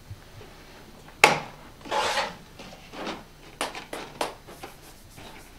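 Plastic beer pong cups being handled and set down on the table while the rack is arranged. There is a sharp knock about a second in, then some rubbing and shuffling, then a few light clicks.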